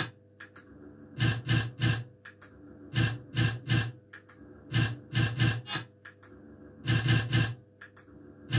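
Astra Riverboat Gambler fruit machine on repeated spins: about every two seconds a quick run of three sharp sounds as the three reels stop in turn, over a steady electrical hum from the machine.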